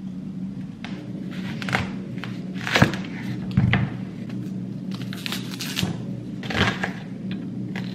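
Onion prep on a wooden cutting board: a few sharp knocks of a chef's knife striking the board, the sharpest about three seconds in, with crackly rustles of papery onion skin being peeled, over a low steady hum.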